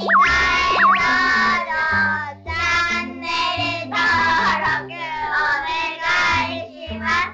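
Outro song: a voice singing short phrases over a backing track with a stepping bass line, with quick up-and-down pitch swoops in the first second.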